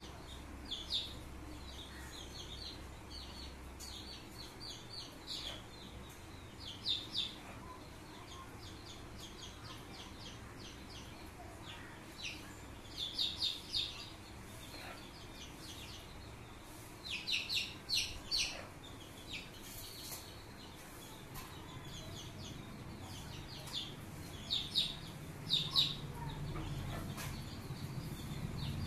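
Indian country-chicken (naattu kozhi) chicks peeping: short, high cheeps in quick clusters of two to four, repeated every few seconds.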